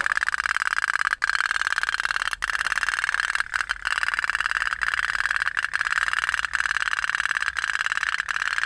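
Toy otok-otok (pop-pop) steam boat running: its flame-heated tin boiler makes a fast, steady metallic putt-putt as it drives the boat along.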